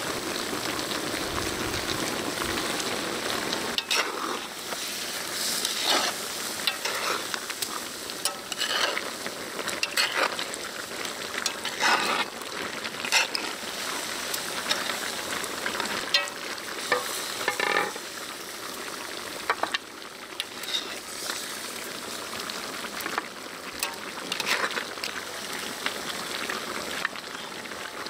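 Braised short ribs and vegetables sizzling and bubbling in a cast-iron cauldron. Metal tongs clink and scrape against the pot again and again as the meat is stirred and lifted out.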